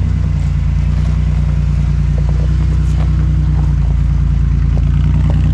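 Off-road vehicle engine running steadily at low revs as a 4x4 crawls slowly over a trail boulder, with a few faint knocks.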